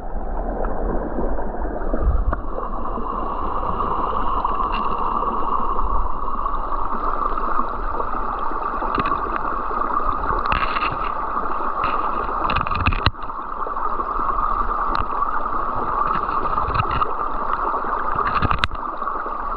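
Creek water gurgling and rushing steadily, with a few sharp knocks, one about two-thirds of the way in and one near the end.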